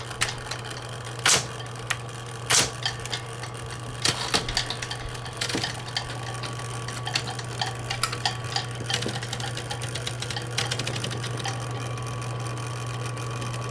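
Smith-Corona Electra 120 electric portable typewriter switched on, its motor humming steadily, with irregular sharp clicks and clacks from the machine's mechanism.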